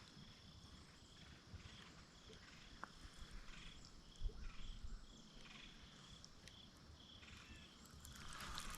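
Faint outdoor ambience: a quiet chirping about twice a second with a thin steady high tone over a low rumble. A soft rushing noise grows near the end.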